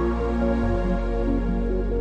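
Background music: a soft new-age electronic track with held synth tones and a steady bass that shifts note about half a second in.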